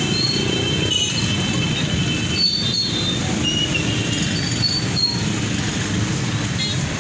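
Busy street-market din: a steady rumble of traffic and crowd, with short high squeaks coming and going over it.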